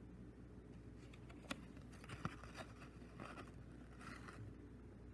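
Faint handling of a cassette's clear plastic case and paper J-card: a few light clicks and soft rustles.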